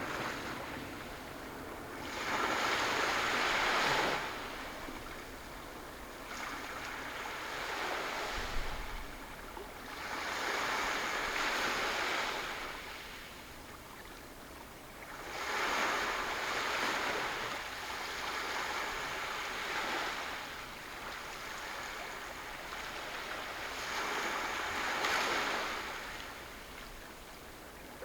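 Sea waves washing in on the shore, the rushing noise swelling and fading every several seconds.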